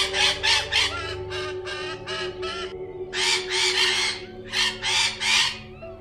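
Scarlet macaws calling with harsh, rasping squawks: a quick run of about ten short calls, then after a brief pause a few longer, fuller squawks.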